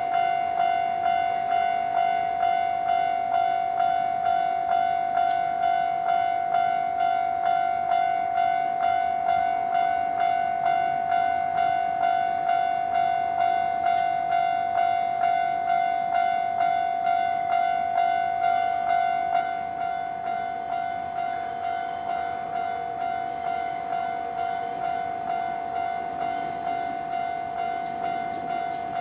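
Japanese railway level-crossing electronic warning bell ringing in a steady repeating clang, about three strikes every two seconds. About two-thirds of the way through it drops a little in loudness and keeps ringing.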